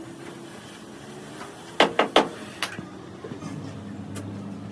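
Workshop knocks: three sharp knocks in quick succession about two seconds in, then one more, over a low steady hum.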